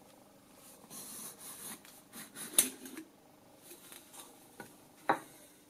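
Electronics chassis of an aircraft engine RPM indicator being slid out of its cylindrical metal case by gloved hands: rubbing and scraping with small clicks, one sharp knock about two and a half seconds in and another about five seconds in.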